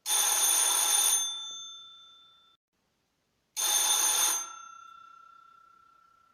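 Doorbell ringing twice, about three and a half seconds apart: each ring lasts about a second, then the bell rings on and fades away.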